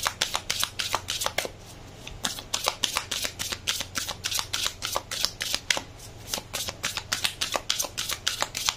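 A deck of large oracle cards shuffled by hand, cards slapping and sliding against each other in quick snaps, several a second, with a short pause about two seconds in.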